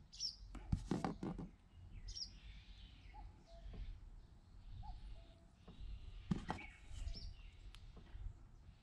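Small birds chirping now and then, short high chirps a few seconds apart, with two brief clusters of sharp clicks and rustles from hands handling something close by, about a second in and again about six seconds in.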